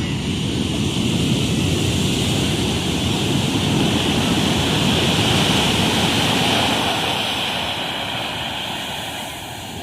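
Sea waves surging up a beach, the wash swelling to its loudest about halfway through and then fading away, with wind rumbling on the microphone.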